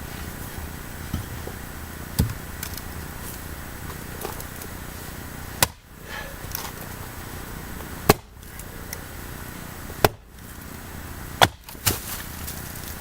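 Axe chopping firewood by hand: a handful of sharp single strikes into wood about two seconds apart, the loudest four in the second half.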